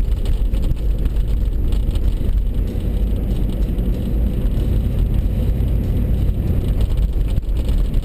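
Steady low rumble of a four-wheel-drive vehicle driving on a snow- and slush-covered road, heard from inside the cabin: engine and tyre noise with no sharp events.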